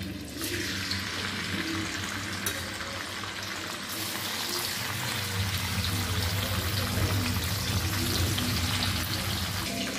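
Paneer cubes sizzling as they fry in hot oil in a kadhai, more cubes going in while the oil hisses steadily.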